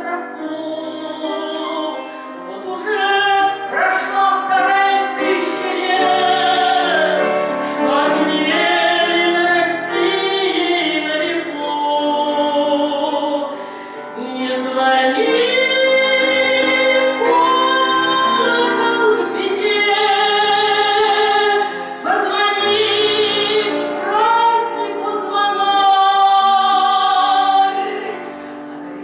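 A woman singing a slow Russian song in full voice with wide vibrato, in long held phrases that break off briefly about 14 and 22 seconds in.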